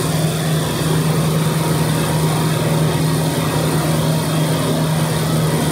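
Refrigeration rack compressors and a compressor head cooling fan running steadily, with a strong low hum under an even whirring noise. The repaired compressor is running normally.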